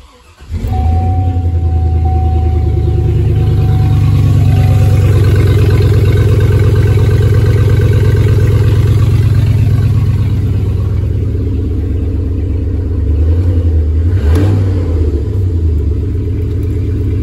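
Chevrolet Avalanche V8 cold-starting, catching about half a second in, then fast-idling loud through open exhaust: the pipes are cut off behind the transfer case and the catalytic converters are removed. It is briefly revved near the end. A faint door-open chime sounds at the start.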